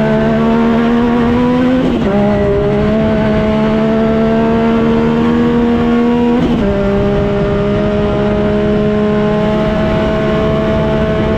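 Yamaha Viper snowmobile's 1050 engine, swapped into a side-by-side, pulling hard under load as the vehicle runs down a trail. Its note climbs slowly, then drops sharply about two seconds in and again past the middle, as it shifts up a gear.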